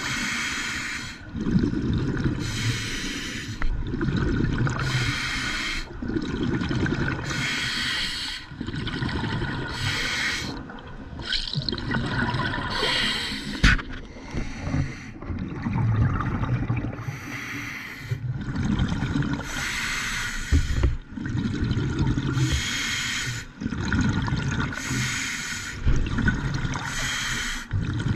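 Scuba diver breathing through a regulator underwater: a hiss on each breath alternates with rumbling, gurgling exhaled bubbles, repeating every second or two. A single sharp click sounds near the middle.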